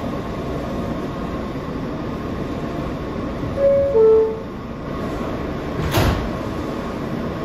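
New York City subway car at a station stop: a falling two-note door chime about three and a half seconds in, then the sliding doors close with a thump at about six seconds. A steady hum of the stopped train runs underneath.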